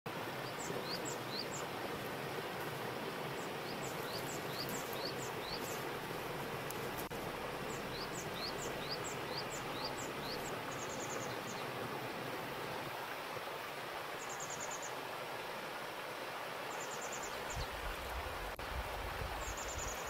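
Small mountain stream cascading over rocks: a steady rush of water. A bird calls over it in runs of four to six short rising chirps, with a few brief high trills, and a low rumble comes in near the end.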